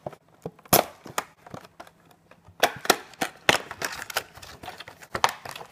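Clear plastic packaging box being opened and unfolded by hand: irregular crackles and clicks of the thin plastic, with several sharp louder snaps.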